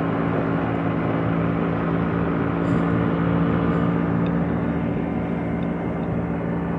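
Small boat's engine running steadily while the boat is under way, a constant even hum.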